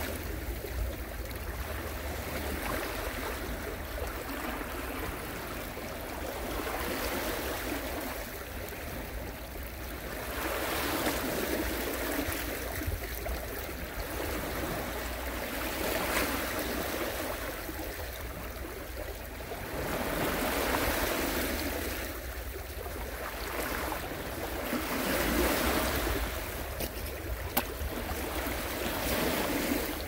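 Sea waves breaking and washing on the shore, the surf swelling and falling back every few seconds.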